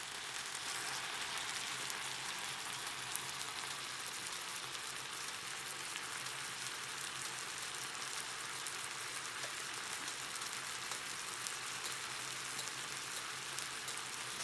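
Beef, rice, corn and asparagus sizzling on an electric hot plate: a steady hiss with light crackles.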